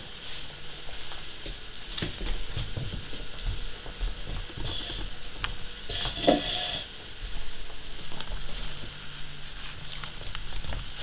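Cavalier King Charles spaniel gnawing on a deer antler: irregular scraping and clicking of teeth on the antler, with a short louder noise about six seconds in.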